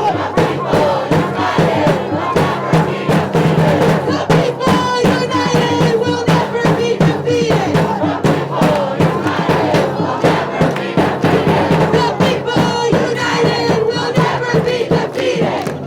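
Crowd of protesters chanting together loudly, with rhythmic percussive beats.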